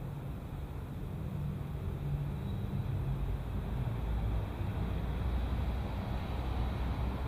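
Street traffic: a car driving past, its engine and tyres making a low rumble that grows louder about four seconds in, over a steady city traffic hum.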